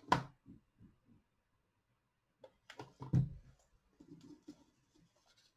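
Fingers handling dried moss and flowers on a paper tag on a wooden table: a sharp tap at the start and a few soft knocks, then a short cluster of clicks and crackly rustling about three seconds in, trailing off into faint rustling.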